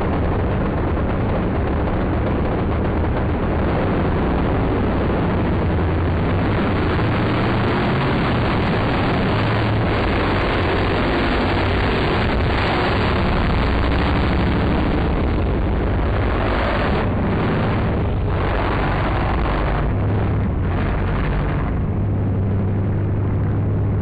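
Naturally aspirated Coyote 5.0 V8 in a Ford Maverick drag car at full throttle, launching hard enough to lift its front wheels and running down the strip beside a second race car. The engine noise is loud and steady.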